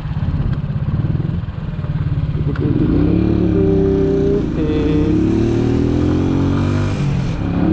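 Italika DT 125 motorcycle's single-cylinder four-stroke engine running under the rider, first at low revs, then pulling harder from about three seconds in, its note rising and then easing off.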